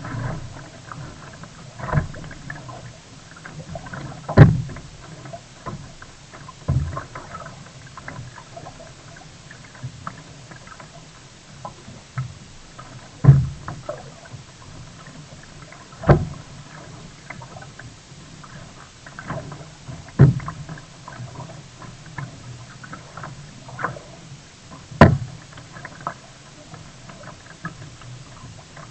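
Sea kayak on the water: sharp thuds and knocks come irregularly every few seconds over a steady low rumble.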